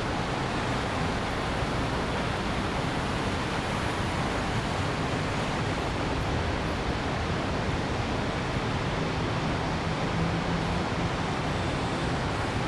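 Steady city ambience: an even, continuous wash of distant traffic with a faint low hum underneath, and no single event standing out.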